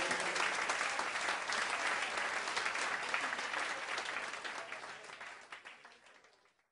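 Audience applauding at the end of a live salsa performance, dying away to silence over the last two seconds.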